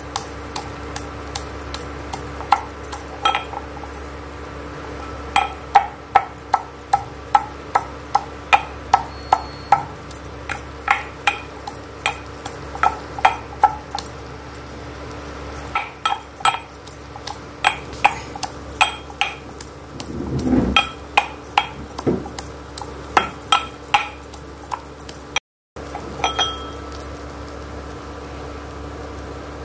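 A metal pestle pounding garlic cloves in a steel bowl: sharp metallic knocks, about two a second, with short pauses in between, over a steady low hum.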